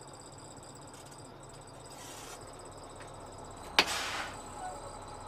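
A single loud metal clank about four seconds in, with a short rattle after it, as the tractor's fifth wheel slides out from under the trailer. Insects chirp steadily underneath.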